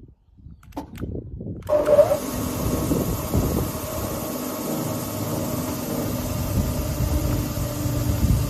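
GOMAD DCFDA spindle moulder's 3.8 kW motor starting suddenly a little under two seconds in, then running steadily with the spindle turning; a couple of clicks come just before it starts.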